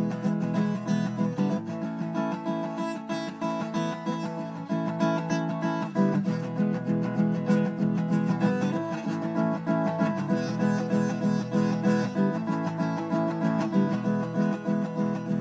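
Music: an instrumental passage with a steadily strummed acoustic guitar.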